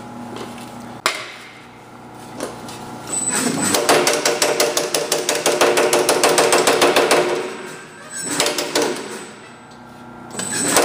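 Power hammer rapidly striking an aluminium body panel between its dies. A single knock comes about a second in, then a long run of fast, even blows, and two shorter runs near the end. The hammer is working the metal to stretch the panel so it comes in to fit.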